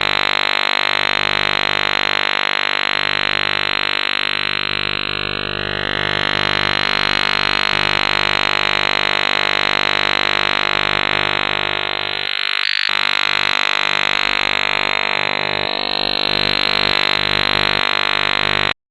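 Harsh electronic drone built from many steady tones at once, with a fast pulsing throb underneath and faint whistling sweeps now and then. It dips out for a moment about two-thirds of the way through and cuts off abruptly at the end.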